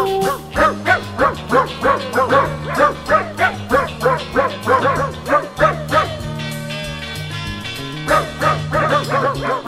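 Background music: a held low accompaniment under a quick, evenly paced run of short yelping, dog-like notes, about three a second. The run pauses about six seconds in and starts again near the end.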